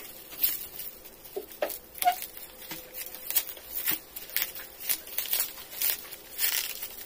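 Plastic bubble wrap crinkling and rustling as hands work it off a small cardboard box, making an irregular run of crackles.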